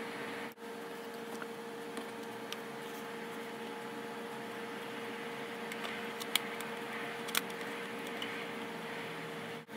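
Steady hum and hiss with a few faint, short clicks, twice a little more distinct past the middle.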